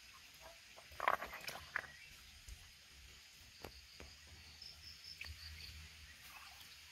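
Hands splashing and sloshing in shallow stream water while feeling under rocks for crabs, with a quick flurry of splashes about a second in and single splashes later. A faint run of short high chirps comes near the middle.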